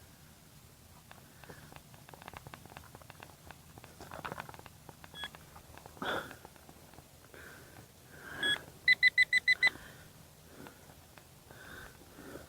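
Electronic beeps from metal-detecting gear: a single short beep about five seconds in and another at about eight and a half seconds, then a quick run of about seven beeps just before ten seconds, the loudest sound here. Soft scraping and rustling of handling come and go around them.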